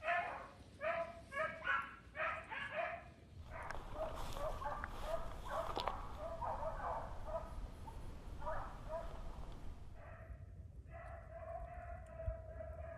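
Beagles baying on a rabbit's track. One dog gives short, repeated bays about two a second, then several dogs give tongue together in a jumble. Near the end comes one long, drawn-out bawl.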